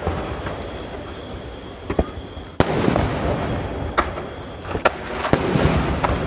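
Shakudama (30 cm) aerial firework shells bursting in rapid succession: several sharp booms, the loudest about two and a half seconds in, each trailing off into a long rumble.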